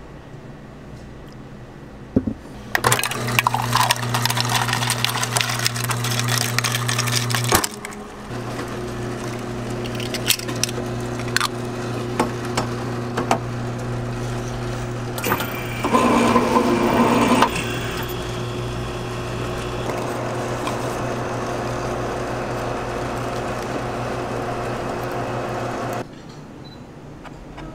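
Electric can-sealing machine running with a steady low motor hum, loud with grinding noise for several seconds as it crimps a lid onto a drink can, then humming more quietly with a few clicks and a second brief louder crimping burst; the hum stops abruptly near the end.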